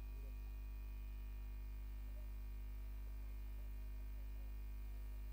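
Steady electrical mains hum with a stack of overtones, running unchanged.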